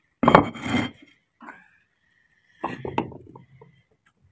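Fired clay bricks set down and scraped on a concrete floor while they are arranged around a bed of coals: a loud knock and scrape about a quarter second in, then a cluster of smaller knocks and scrapes near three seconds.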